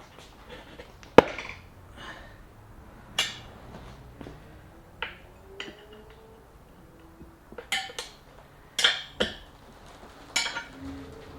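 Metal tyre levers clinking and knocking against a motorcycle wheel rim as a tyre bead is levered on. A sharp clink comes about a second in, followed by half a dozen more at uneven intervals.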